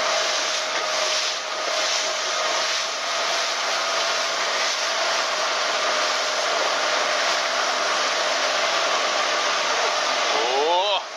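Small motorboat running at speed: a steady rush of wind and wake spray with a faint steady engine tone underneath. Near the end a short rising tone sounds and the rush briefly dips.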